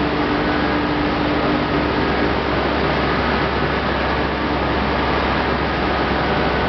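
Corn wet-milling machinery running steadily: a loud, even machine noise with a few faint steady hums in it.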